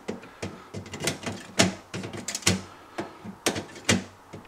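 Irregular sharp clicks and taps of metal snips working against the aluminium lugs of a fridge evaporator, bending them away from the defrost heater element.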